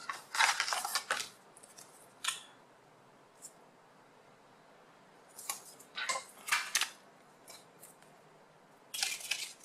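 Paper instruction and warranty leaflets rustling and crackling as they are unfolded and handled, in several short bursts with quiet gaps between.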